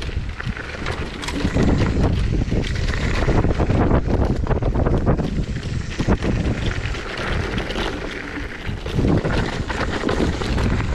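Wind buffeting the microphone over the rumble of a Zero 10X electric scooter's off-road tyres rolling on loose gravel, with frequent small knocks and rattles from the bumpy trail.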